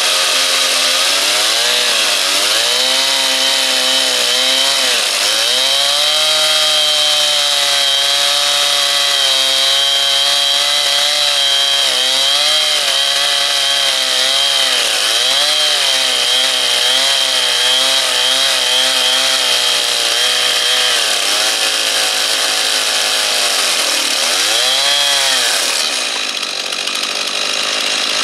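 Two-stroke Stihl chainsaw running at high revs while ripping lengthwise through a log in a chainsaw mill. The engine note sags and recovers several times as the cut loads it, over a steady high whine.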